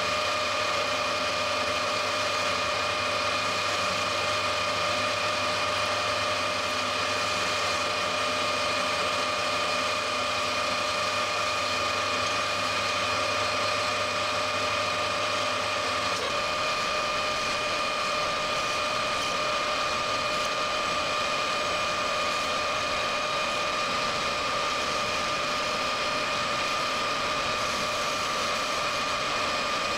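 Metal lathe running with its gear drive giving a steady whine while a carbide tool takes light turning cuts on a slender steel handle held only in the chuck, without tailstock support. The low hum underneath changes about halfway through.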